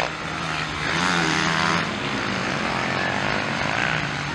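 Motocross dirt bike engines running on the track, a steady engine drone whose pitch rises and falls as the throttle is worked.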